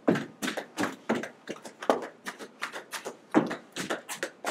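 Quick footsteps on a hard floor: a rapid, uneven run of sharp steps, about four or five a second, as a man walks briskly across a stage.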